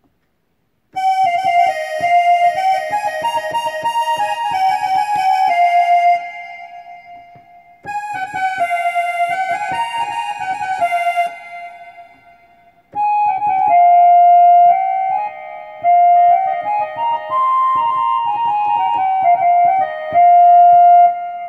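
Korg Pa1000 arranger keyboard playing its factory accordion voices, the musette and Cassotto 16' presets, as a short melody. It comes in three phrases, with brief breaks about six seconds in and again about twelve seconds in.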